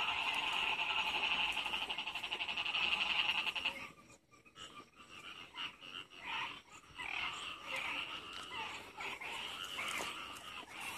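Field frogs calling after rain: a dense, rapidly pulsing chorus that stops abruptly about four seconds in. Scattered separate croaks follow.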